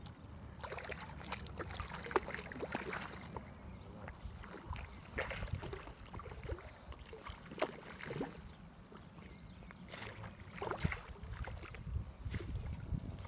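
A common carp splashing and thrashing in shallow water at the bank as it is reeled in, in irregular splashes every second or two, over a steady low rumble on the microphone.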